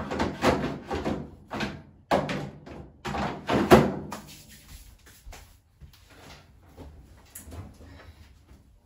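A quick run of knocks and thumps as laundry is handled at a clothes dryer, loudest in the first four seconds, then fading to scattered faint clicks and rustles.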